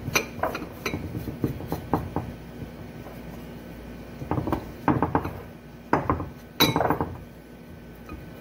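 Light knocks and clinks of vegetable pieces being pushed and wedged into a full ceramic baking dish, scattered through, with quick clusters about five and seven seconds in.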